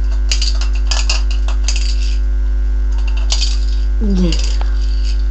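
Scattered light clicks and clinks of a small toy car being handled on a tiled floor, over a loud, steady low hum. A brief falling vocal sound comes about four seconds in.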